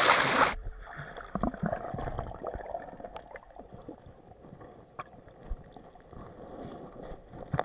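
Water splashing in a shallow stream that cuts off abruptly about half a second in, followed by muffled underwater gurgling with scattered faint clicks and knocks, heard from beneath the surface.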